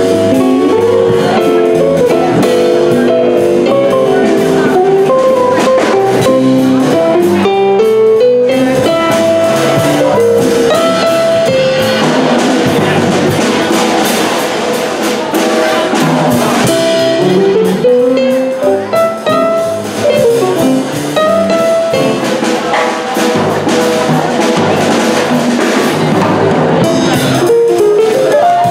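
Small jazz combo playing live: electric and archtop guitars, electric bass, keyboard and drum kit swinging together, with melody lines moving over the rhythm section.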